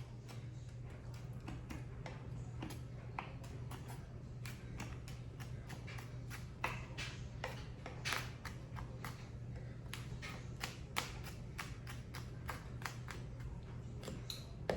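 Elephant garlic scapes being cut up: a run of irregular light clicks and taps, a few a second, over a steady low hum.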